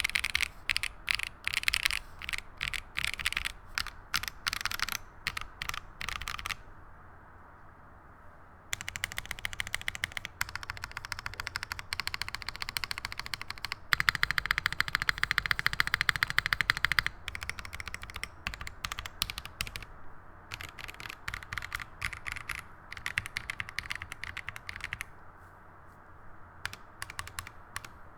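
Typing on a KBDFans KBD8X MkIII mechanical keyboard with lubed Tecsee Neapolitan Ice Cream tactile switches on a top-mounted carbon fibre plate, under GMK Cubed keycaps. Clicking keystrokes come in runs, with a pause of about two seconds near the start and a fast, loudest run in the middle, then thin out to scattered key presses near the end.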